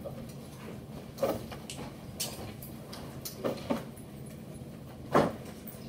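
Scattered classroom handling noises: several short knocks and rustles as students shift chairs and hang book bags on the chair backs, the loudest about five seconds in, over a steady low room hum.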